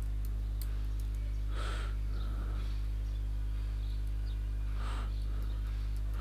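Steady low electrical hum with faint keyboard clicks as text is typed. Two short soft hisses come about one and a half seconds in and again near five seconds.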